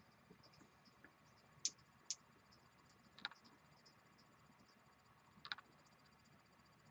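A few sharp, small clicks, spread out over several seconds, from cables and plastic cable fittings being handled, against near silence.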